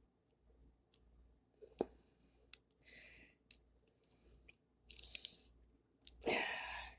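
Picking a five-pin pin-tumbler deadbolt: light scrapes and small clicks of the pick working the pins, with one sharper click about two seconds in and a louder rush of noise near the end.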